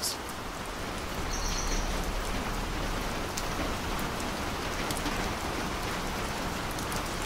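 Steady rain falling, an even hiss that goes on without a break.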